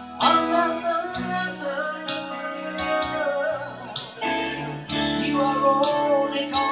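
Live song: a woman singing into a microphone over guitar accompaniment, played through a PA loudspeaker.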